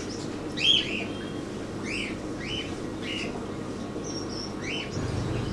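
Caged birds chirping: short, high chirps every half second to a second, over a steady low hum.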